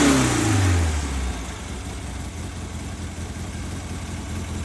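1967 VW Beetle's air-cooled flat-four engine with a Holley Bug Spray carburetor, its revs falling over about the first second and then settling into a steady idle.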